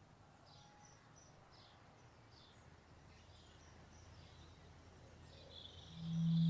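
Faint birds chirping over a quiet outdoor background. Near the end a loud, steady low musical note comes in as music starts.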